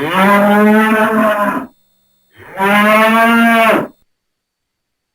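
Bull mooing twice: two long calls of about a second and a half each, with a short gap between them.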